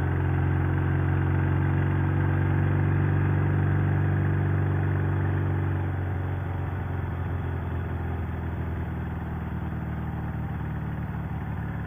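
Sidecar motorcycle's engine running steadily under way, heard from the rider's seat; it is running well after a tune-up and new transmission. About halfway through its note drops a little quieter.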